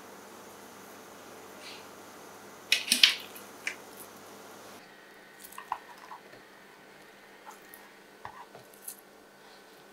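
Food-preparation sounds on a kitchen counter: a quick cluster of clicks and crinkly rustling about three seconds in, the loudest moment, then scattered light taps and clinks of utensils on a board or dish.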